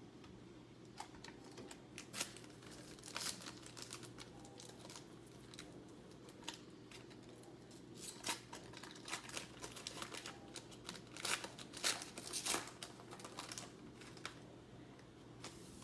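Trading cards and their pack wrappers being handled: scattered crinkles, rustles and light clicks, busiest in the second half, over a faint steady hum.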